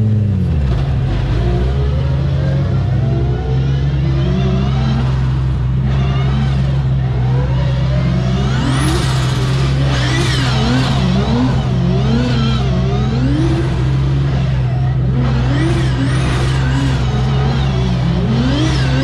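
Drift car engine revving hard and repeatedly while the car slides in circles, pitch rising and falling about once a second from a few seconds in. A steady low engine drone runs underneath.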